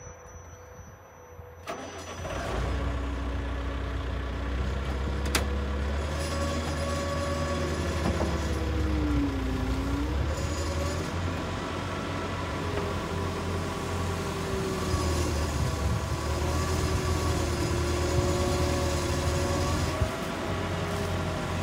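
Cat M315 wheeled excavator's diesel engine starting about two seconds in and then running steadily, with a whine that rises and falls in pitch as the boom and bucket are worked hydraulically.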